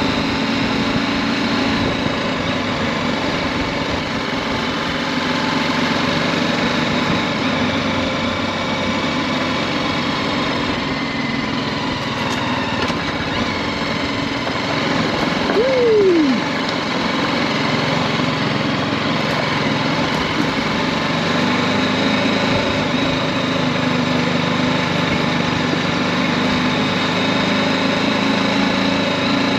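The 313 cc single-cylinder engine of a BMW G310GS motorcycle running steadily while riding along. A brief falling tone sounds about halfway through.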